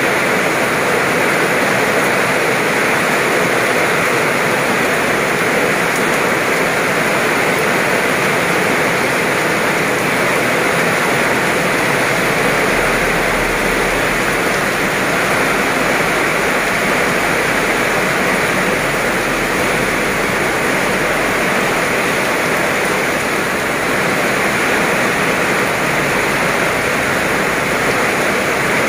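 Heavy downpour: dense, steady rain falling on the road, grass and puddles. A low rumble joins for several seconds in the middle.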